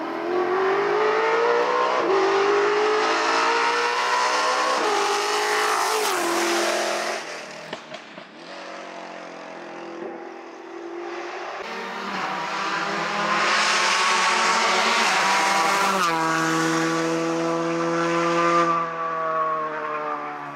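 Race car engines at full throttle. In the first seconds the pitch climbs and drops back with each upshift. About halfway in another car comes through at high revs, louder, then fades near the end.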